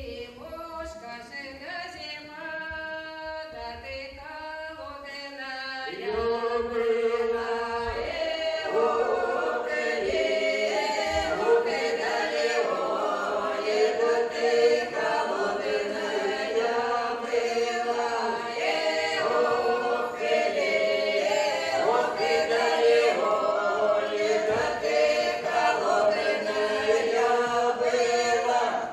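Russian folk ensemble singing a village song in several parts, unaccompanied. It begins softer with fewer voices and grows fuller and louder about six seconds in as the whole group joins.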